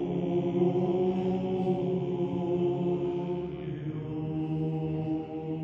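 Background chant music: voices holding long, steady notes in a slow drone, with the pitches shifting slightly a couple of times.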